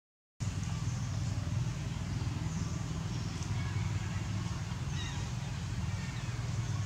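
Steady low rumble with hiss, the outdoor background of a field recording, cutting in after a brief silence at the very start. A few faint, short high chirps come in from about five seconds in.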